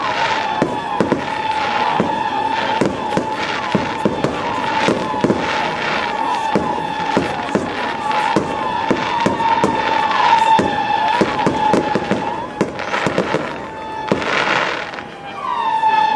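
Aerial fireworks display: a dense, irregular run of shell bursts and crackling, with a steady high tone running beneath and a hissing swell near the end.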